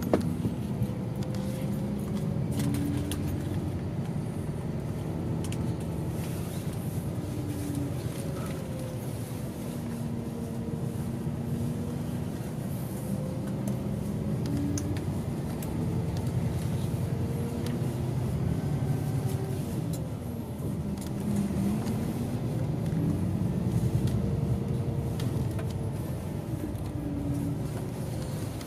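Ride-along sound from inside a highway coach on the move: a steady low engine and road rumble, with the engine's pitch rising and falling as the bus speeds up and slows. Small interior rattles and clicks come now and then.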